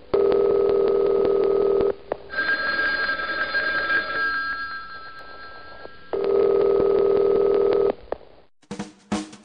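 Telephone ringing: two steady rings of about two seconds each, some four seconds apart, with a trilling bell between them that fades away. Drum hits start near the end.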